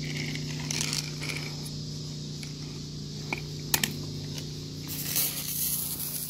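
Soft wash pump running with a steady hum, a couple of sharp clicks from the spray gun about three and a half seconds in, then a hiss as water starts spraying from the nozzle about five seconds in, flushing the hose line.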